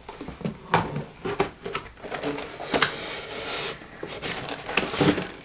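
Cardboard product box and its packing handled by hand: scraping and rustling with several sharp knocks as the tightly packed contents are worked out of the box.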